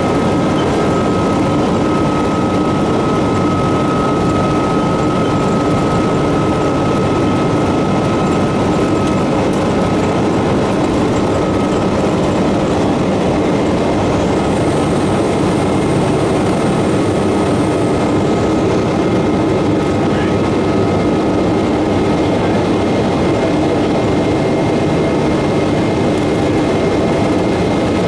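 Boeing 777-200ER jet engines and airflow making a steady, loud noise during departure, with a thin steady whine running through it.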